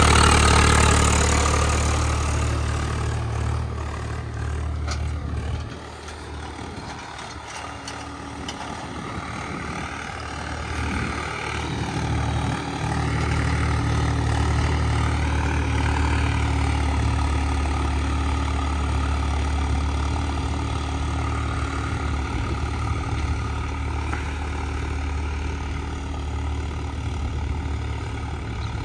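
Swaraj 744 FE tractor's three-cylinder diesel engine running steadily. It is loud at first, drops off sharply about six seconds in, then builds back up and holds.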